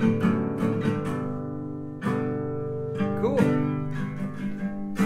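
Acoustic guitar chords, strummed and ringing, played back from a recording through a homemade speaker of four drivers set in PVC tubes, each facing a different direction.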